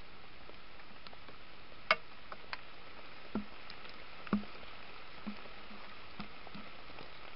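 Steady hiss of a trail camera's microphone with a handful of soft clicks and knocks, the sharpest about two seconds in, as a red fox moves about close to the camera.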